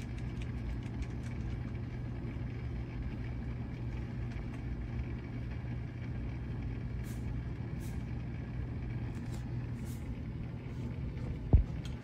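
An inflatable hot tub's pump unit running with a steady low hum, and a single sharp thump near the end.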